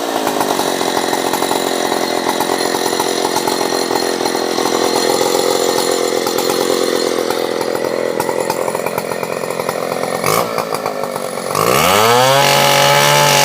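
Stihl 720 chainsaw running at full throttle under load, cutting wood for about ten seconds. Near the end the revs drop briefly, then rise in a quick upward sweep to a steady high-pitched run.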